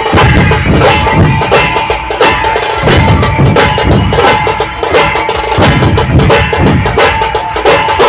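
Loud procession music with a heavy, driving drum beat and deep bass, played over a large festival sound system.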